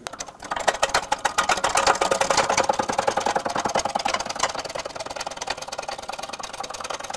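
Hydraulic shop press being pumped, a rapid and even mechanical chatter, as its ram pushes an old rubber control-arm bushing out of the arm.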